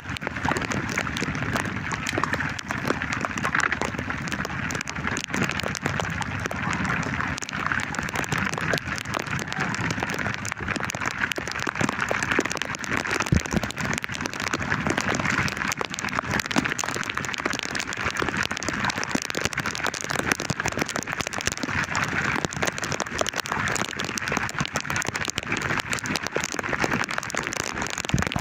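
Heavy rain falling steadily, a dense patter of countless drop hits.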